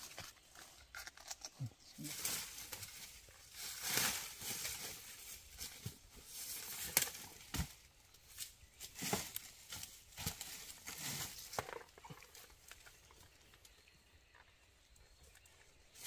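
Dry bamboo leaves rustling and crunching under a person moving and working on the forest floor, in irregular bursts with a few dull knocks. It gets quieter near the end.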